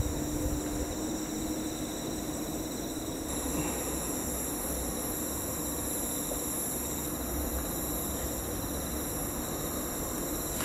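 Night insect chorus: several insects trilling steadily at different high pitches, with another high trill joining about three seconds in, over a faint low rumble.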